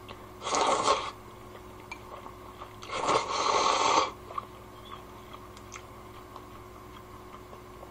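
A person slurping kalguksu noodles from a bowl: a short airy slurp about half a second in, then a longer one from about three to four seconds in.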